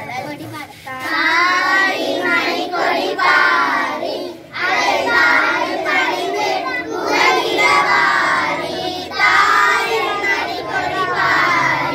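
A group of schoolchildren singing together in unison, with a brief break about four seconds in.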